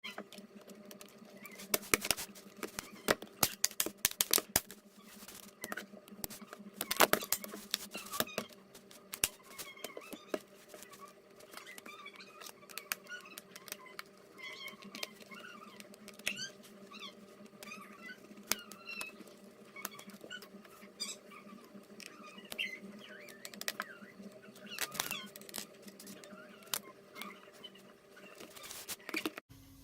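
Hand tools working on a laptop's plastic case: irregular clicks, taps and small squeaks, busiest in the first few seconds, over a steady low hum.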